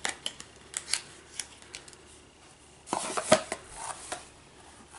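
Cardboard packaging and tissue paper being handled: scattered light clicks and taps, then a brief burst of rustling and knocks about three seconds in as a small box comes out of the calendar.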